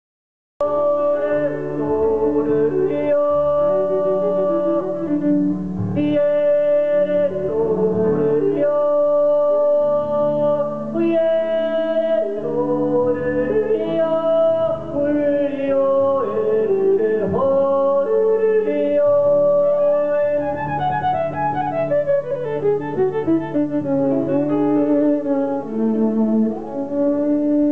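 Live folk band playing a tune on fiddle, banjo and keyboard, with a held, singing melody line over the strings; the music cuts in abruptly about half a second in.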